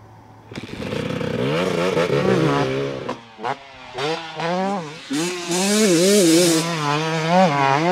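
GasGas MC250 two-stroke motocross bike's engine revving hard, its pitch rising and falling with the throttle, cutting back briefly about three seconds in before pulling again. It starts about half a second in.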